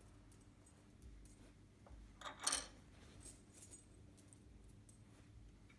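Metal washers clinking as they are handled and set onto the bolts of a caster camber plate: a string of light, separate clinks, the loudest about two and a half seconds in.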